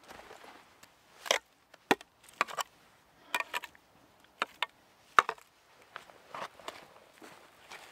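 A shovel blade knocking and scraping against stones while wet clay is pressed into the gaps of a rock oven wall. It makes a series of sharp, irregular knocks, many in quick pairs.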